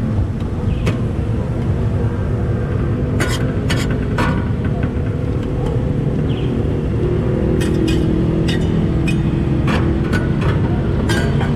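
Metal spatula and scraper clinking and scraping against a flat steel griddle while chopped pork sisig is turned, about a dozen sharp clinks, more of them in the second half. A steady low rumble runs underneath.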